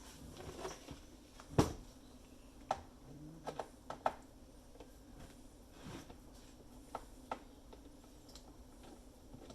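Scattered clicks and light knocks of small parts and tools being handled while an espresso machine is taken apart, the loudest about one and a half seconds in, over a faint steady hum.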